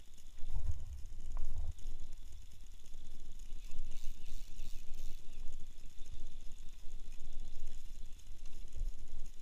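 Spinning fishing reel being cranked, its gears and clicking mechanism working, over a steady low rumble.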